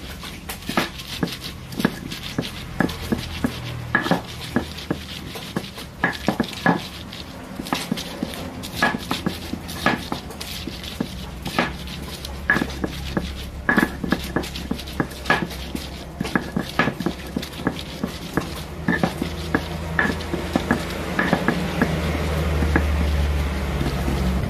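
Stone pestle striking and grinding on a stone mortar (cobek), crushing shallots and chilies into a spice paste. Irregular sharp clacks, a few with a short ring, then a steadier scraping grind near the end.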